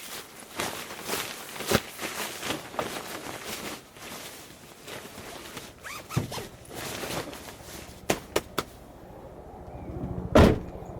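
Someone handling things at close range: scattered rustles and knocks, a quick run of three sharp clicks about eight seconds in, and a loud thud near the end.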